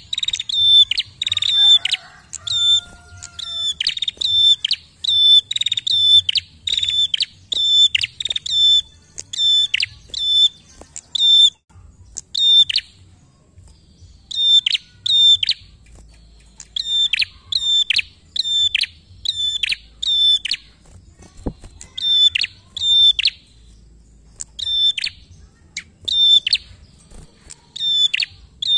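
Caged prenjak calling a long run of loud, sharp, rapidly repeated notes, about two a second, broken by a couple of short pauses.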